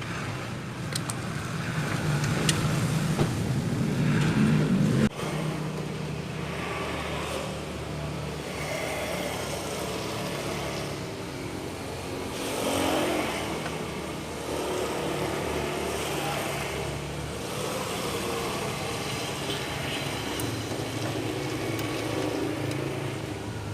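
A motor vehicle's engine running, louder for the first five seconds, then dropping off abruptly and carrying on more quietly.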